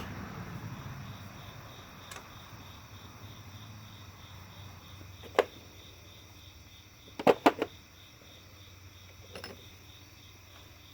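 A few sharp clicks and clinks of tools and parts being handled in a car's engine bay: one about five seconds in, then three in quick succession a couple of seconds later, over a faint steady hum.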